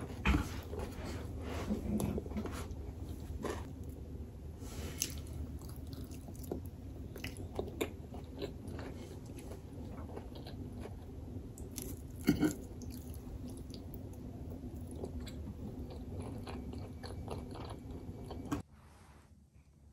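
A person chewing and biting food close to the microphone, with scattered short crunches and mouth clicks over a steady low hum. The sound cuts off abruptly about a second before the end.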